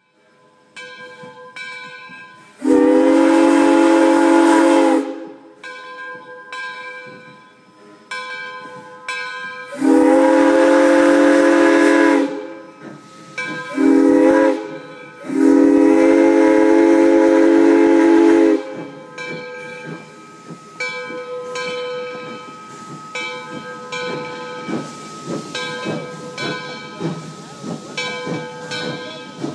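Steam whistle of a 2-8-0 Consolidation steam locomotive blowing the grade-crossing signal: long, long, short, long, each blast sounding several notes at once. Between and after the blasts the train runs past with a quieter repeated chuffing and clatter.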